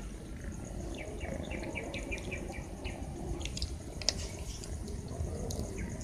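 A bird chirping a quick run of about ten short notes, then a few sharp clicks about four seconds in.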